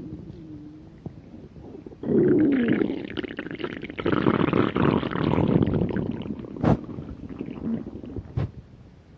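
Hungry stomach growling and gurgling. A long, loud rumble starts about two seconds in, then two short sharp gurgles come near the end as it fades.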